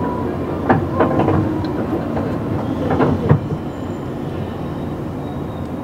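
Running sound heard inside a JR 117 series 100-subseries electric train: a steady rumble with a cluster of sharp wheel clacks over rail joints in the first half, then a smoother, slightly quieter run.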